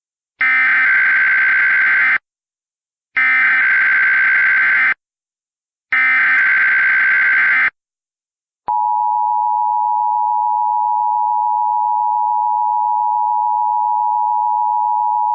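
Emergency Alert System SAME header, three screeching data bursts of just under two seconds each, about a second apart. About a second after the third burst a steady attention tone starts and holds. Together they open a new emergency alert.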